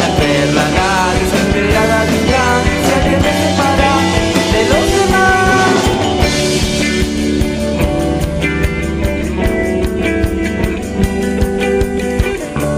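Rock band playing a song, with a wavering lead melody over the first half that gives way to steadier held notes and regular strokes.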